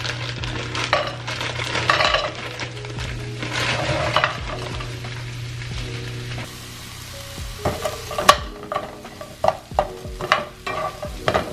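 Frozen broccoli sizzling in olive oil in a skillet, hissing strongly for the first half. From a little past halfway, a utensil knocks and scrapes against the pan as the broccoli is stirred.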